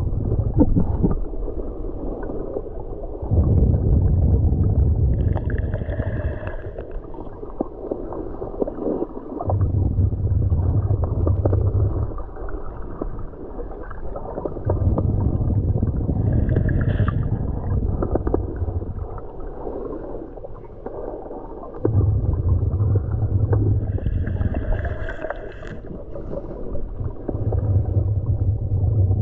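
Muffled underwater noise picked up by a GoPro action camera in its housing while the snorkeler swims: a low water rumble and gurgling that swells and fades every five seconds or so. A short higher hiss comes three times.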